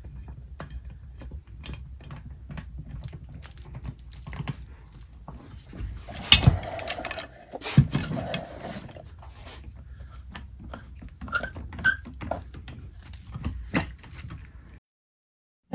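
Clamps being set and tightened on a glued guitar-neck blank: irregular clicks and knocks of metal clamps and wood, with two louder knocks about six and eight seconds in, over a low hum. It stops abruptly about a second before the end.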